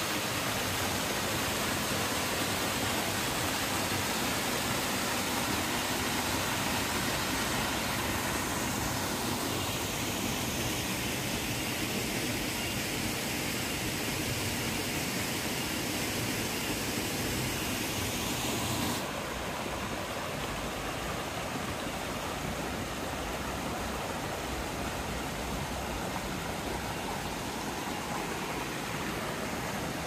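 Steady rushing of water from a small waterfall and the stream below it. About two-thirds of the way through, the sound suddenly turns duller and a little quieter.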